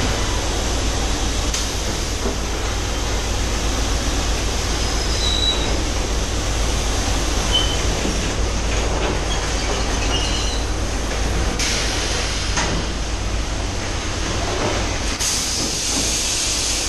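Robotic palletizing line for 5-litre PET water bottles running: a steady machinery drone with a low hum and hiss from the robot arm and conveyors, with two louder bursts of hiss in the second half.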